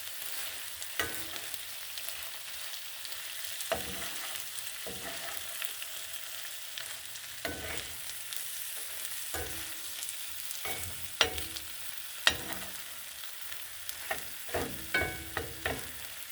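A spoon stirring chili in a pot as it sizzles: a steady frying hiss with irregular clinks and knocks of the spoon against the pot, coming more often near the end.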